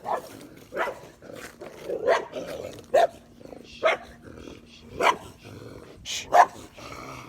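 Dogs barking: short single barks at roughly one-second intervals.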